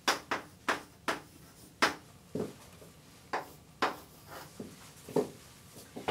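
Chalk striking and scraping on a blackboard while writing: a series of irregular sharp taps.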